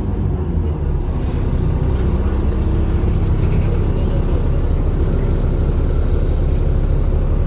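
Alexander Dennis Enviro400 (E40D) double-decker bus running with a steady low rumble. From about a second in, a steady high whine joins it: the 'hoover' whine this bus is known for.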